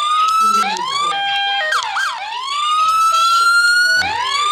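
Code3 siren app playing in auto mode, cycling on its own through its electronic siren tones. Short rising whoops and a brief stepped tone with a quick warble give way to a long, slowly rising wail, which starts over near the end.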